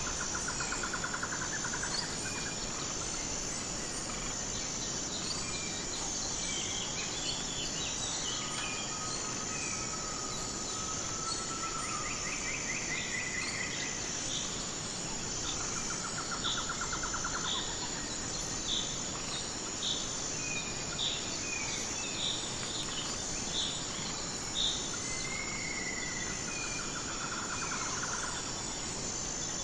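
Steady high-pitched insect chorus with several birds calling over it: short pulsed trills near the start, in the middle and near the end, a long drawn whistle, and a run of about seven high, evenly spaced notes roughly one a second past the middle.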